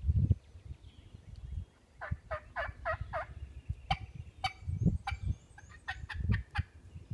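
Wild-turkey hen calls on a diaphragm mouth call: a run of five quick yelps, then about a dozen sharp, short cutts and clucks.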